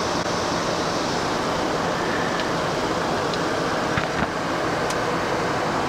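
Steady rushing airflow and air-conditioning noise inside a jet airliner's cockpit in descent, with a few faint clicks from about two seconds in.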